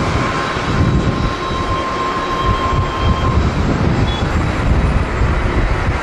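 Boeing 777-300ER jet engines running loud during the landing roll, spoilers up, with a steady whine that fades about three seconds in. Gusty wind buffets the microphone as a heavy, irregular rumble.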